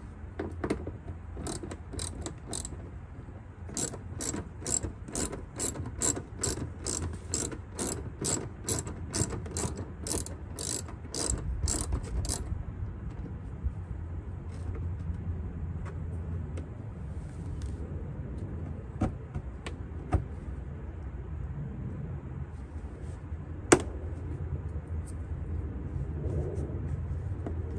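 Hand ratchet with a 10 mm socket clicking in even strokes, about two to three clicks a second, as a bolt in the plastic fender liner is backed out. The clicking stops about halfway through, and a single sharp click comes near the end.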